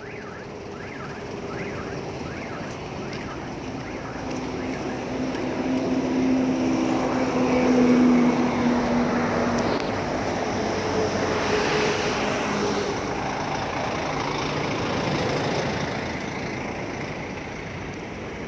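Road traffic dominated by a large vehicle's engine running close by, with a steady low engine tone. It grows louder to a peak about eight seconds in, then eases off.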